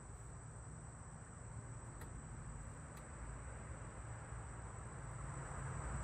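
Steady high-pitched insect buzz over a low outdoor rumble, with two faint clicks about two and three seconds in.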